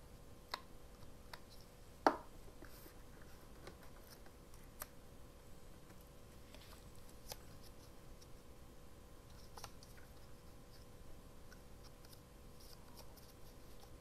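Hands handling paper and craft tools on a cutting mat: scattered light clicks and taps, with one sharper knock about two seconds in.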